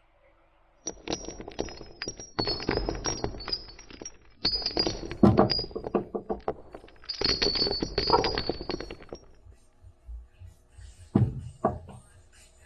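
Loose small metal hardware clinking and rattling together in a container, in three shaken bursts of about two seconds each with bright metallic ringing, followed by a few separate knocks near the end.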